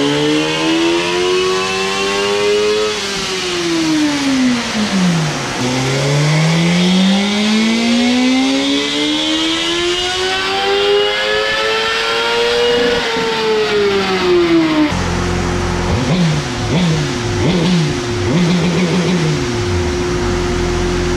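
Suzuki GSX-R1000R inline-four on a chassis dyno with its stock exhaust, revving up in a short run and winding back down, then pulling in one long, steady climb to high revs in a baseline power run. About fifteen seconds in it drops back to a steady idle, with a few quick throttle blips near the end.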